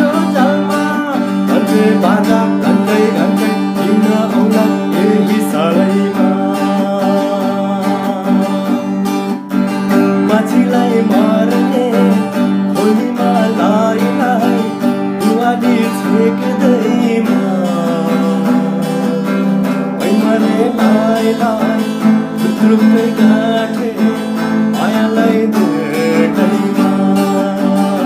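A man singing a Nepali song to his own acoustic guitar, strummed steadily.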